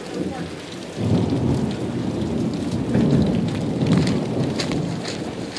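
Rain falling steadily, with a low rolling rumble of thunder that comes in suddenly about a second in and lasts several seconds.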